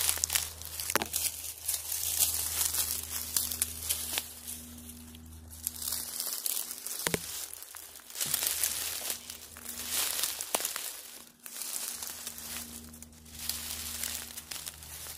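Footsteps crunching and swishing through dry leaf litter and brush, in irregular surges, with a few sharp snaps among them.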